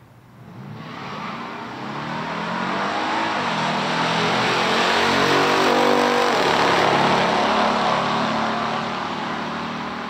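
Two V8 muscle cars, a Chevrolet Camaro SS with a 396 and a Dodge Super Bee with a 440 Six Pack, both with three-speed automatics, racing down a drag strip at full throttle. The engines rise in pitch as they pull through the gears, are loudest as they pass about six seconds in, then fade.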